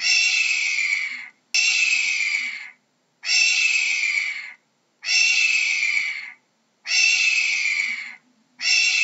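Hawk screaming: six long calls, each falling slightly in pitch and fading out, repeated evenly about every one and a half to two seconds.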